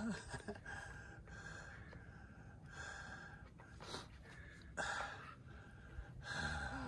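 A person breathing hard close to the microphone, roughly one breath a second, with a low rumble underneath.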